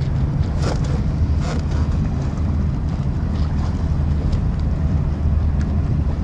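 Steady low rumble of a boat's motor under wind noise on the microphone, with splashing water. About five seconds in, the whistle buoy's tone sounds faintly and briefly.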